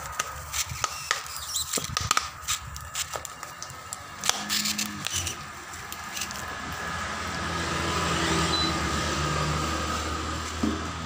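Clicks and knocks from hands working over an inflated rubber tractor inner tube. After about four seconds a motor vehicle's engine hum nearby grows louder, peaks, and then fades.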